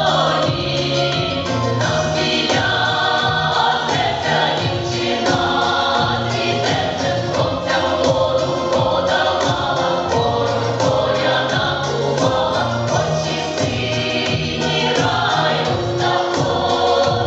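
Mixed women's and men's folk-song vocal ensemble singing a Ukrainian folk song together in harmony.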